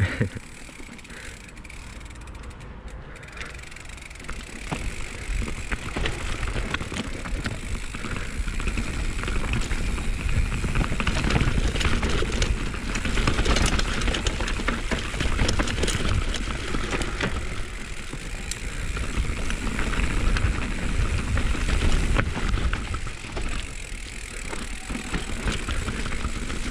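Mountain bike rolling downhill over grass, stones and leaf-covered dirt: tyre noise and the bike rattling over bumps, with a rushing rumble of wind on the handlebar camera. Quieter at first, it grows louder and rougher from about five seconds in as the bike picks up speed.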